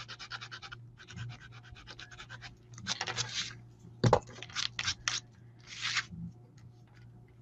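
Rapid back-and-forth rubbing on paper cardstock, about eight strokes a second, easing into slower, irregular scratchy strokes, with a single sharp knock about four seconds in.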